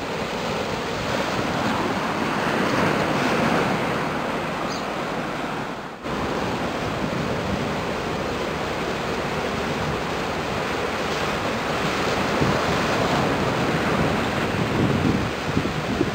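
Steady rushing of wind on the microphone and water washing at the shore, with a brief break about six seconds in.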